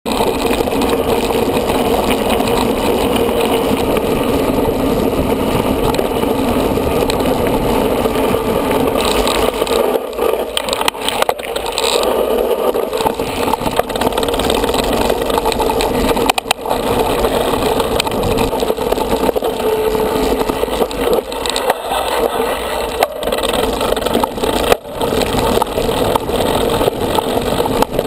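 Steady wind rush and rattling from a bike-mounted camera while a mountain bike rides a rough dirt trail, with a few sharp knocks as the bike hits bumps.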